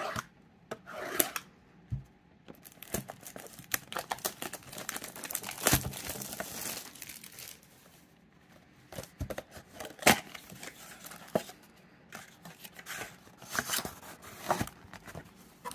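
Plastic shrink wrap being torn and crinkled off a cardboard trading-card box: irregular crackles with a few sharp snaps, in several spells with short pauses. Near the end the box's cardboard top flap is pulled open.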